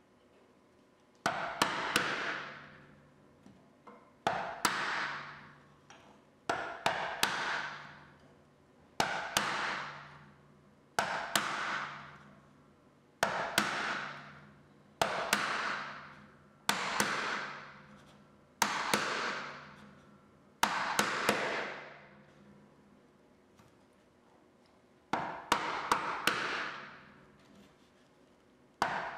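Brass mallet striking a wood chisel to chop out a stopped groove in a board by hand. Light knocks come in clusters of two or three about every two seconds, each trailing off over about a second, with a longer pause near the end.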